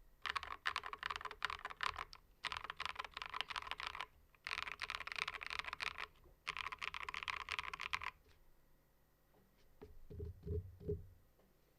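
Typing on a KBD67 Lite mechanical keyboard with Wuque Studio MM switches (POM housings, P3 stems) and PBT keycaps, dampened with silicone and polyfill. The typing comes in four quick runs with short pauses and stops about eight seconds in. Three soft, low thumps follow near the end.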